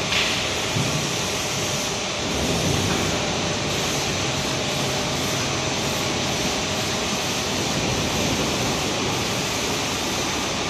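Single-screw, double-head blown-film extrusion line running: a steady, even mechanical noise from its motors, blowers and film winders, with a faint steady whine in it.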